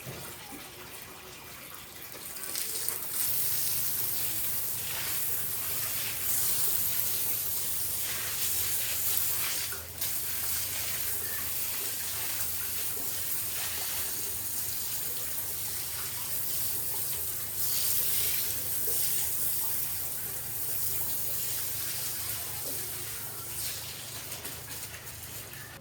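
Water running from a tap and splashing, with a steady low hum joining about three seconds in.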